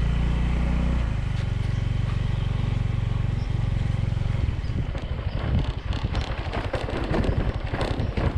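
Yamaha 125 cc automatic motorbike's single-cylinder engine running under throttle as the bike rides on, a steady hum at first. From about halfway the hum is broken up by irregular knocks and rattles.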